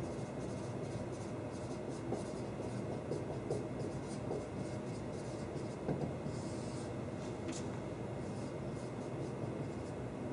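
Dry-erase marker writing on a whiteboard: a run of short scratchy strokes as words and a formula are written, over a steady background hum.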